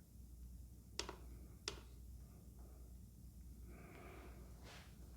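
Near silence with a steady low hum, broken by two sharp clicks, about a second in and again just over half a second later.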